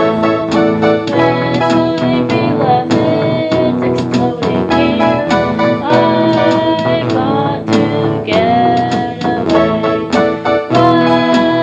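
Music: a song with instruments playing a busy run of notes.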